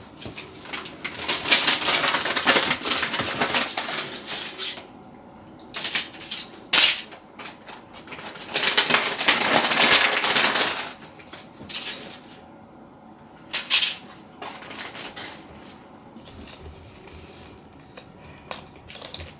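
Hands preparing a cat's medicine and food: two stretches of a few seconds of dense, scratchy handling noise, with sharp clicks and knocks between them.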